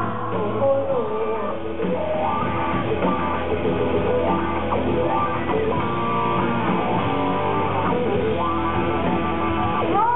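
Live rock band with electric guitars playing an instrumental break with no singing. The vocal comes back in right at the end.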